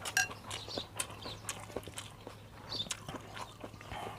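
Close-up eating sounds: chewing beef noodle soup, with sharp utensil clicks against the bowl. Birds chirp briefly in the background.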